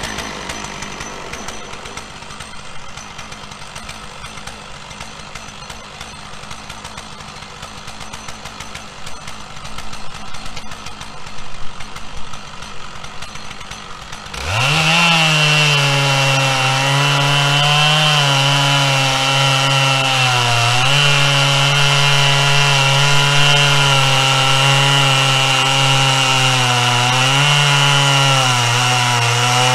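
Chainsaw on a chainsaw mill idling, with a few louder clatters partway through. About halfway in it is throttled up to full speed and settles into a steady cut through a pine log, its pitch dipping briefly under load now and then.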